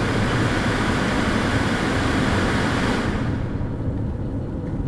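Road and tyre noise of a car driving, heard from inside the car. A hissing rush, as oncoming cars pass, drops away about three seconds in, leaving a lower steady rumble.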